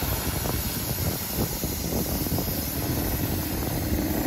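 Outboard motor on the Prius pontoon boat running under way, its engine note growing louder near the end over a rough low rumble.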